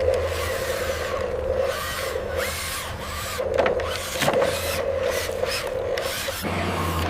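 RC excavator at work: rough scraping and rasping of material being dug and moved, over a steady low motor hum. About six seconds in the scraping stops and a deeper, engine-like drone takes over.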